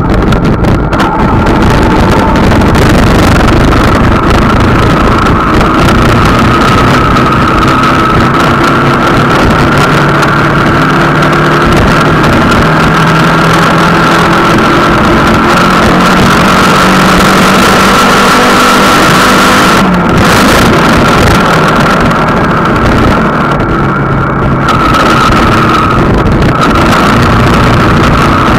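A vehicle's engine running under way while wind rushes over the microphone, the engine note stepping up and down in pitch as the speed changes, with a steady high whine throughout.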